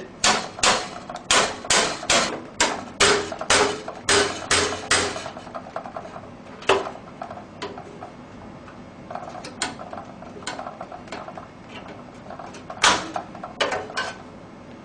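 A screwdriver striking the case's stock metal I/O shield to knock it out of the PC case: a quick run of about a dozen sharp taps, two or three a second, then a few scattered knocks.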